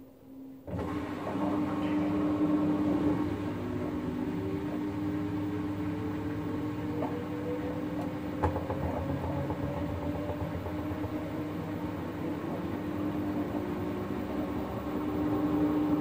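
LG front-loading washing machine at the end of its prewash: about a second in a pump starts with a steady hum and rushing water, draining the prewash water while the drum turns. A faint whine rises slowly in pitch through the middle, and a single sharp click sounds about halfway.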